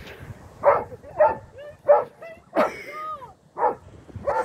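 Dog barking repeatedly in short, sharp barks, about six in a row, one of them a higher, drawn-out yelp about three seconds in.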